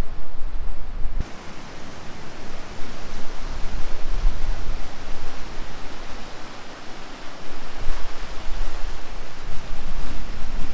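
Steady, even rushing hiss with low gusty rumbles of wind buffeting the microphone; the hiss grows brighter about a second in.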